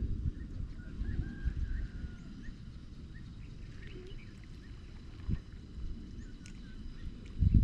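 Faint bird chirps over a steady low rumble of outdoor noise.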